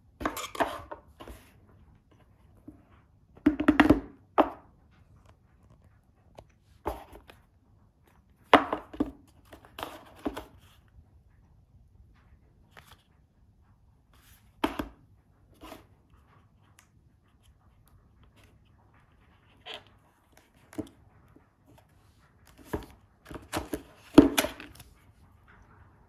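Cardboard phone box and its packaging being handled and unpacked: scattered short knocks, scrapes and rustles of cardboard and paper with quiet gaps between them, the busiest stretch near the end.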